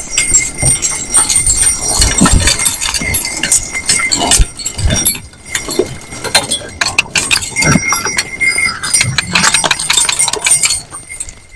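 Harness on a pair of small driving horses jingling and clinking steadily as they walk, with irregular dull thuds of hooves.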